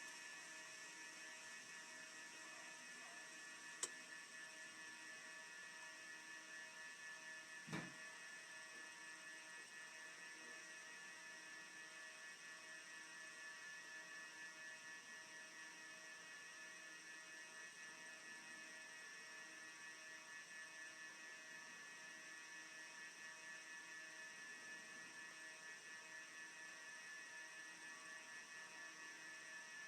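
Faint, steady electrical hum with several high whining tones held throughout; two brief clicks, about four and eight seconds in.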